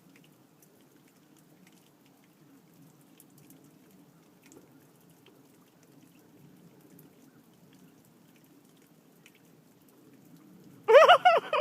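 Light rain with scattered faint drop ticks over a low background hum. Near the end, a loud, short vocal outburst from a person, with a rising and falling pitch.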